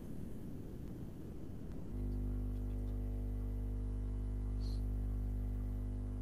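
Low, steady electrical hum with many overtones that comes in suddenly about two seconds in and cuts off at the end, over faint background hiss; a brief high chirp about three-quarters of the way through.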